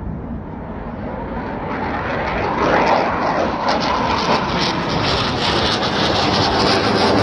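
Jet aircraft flying over, its loud engine noise swelling steadily, with a crackle in it as it gets closer.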